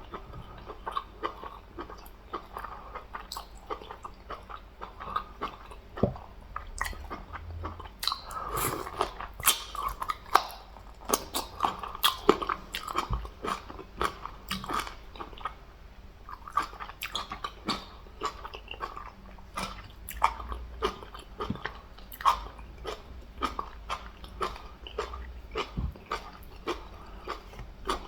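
A person chewing and biting food close to the microphone: a steady run of irregular wet clicks and smacks, several a second, while eating a meal of fufu with catfish soup and meats.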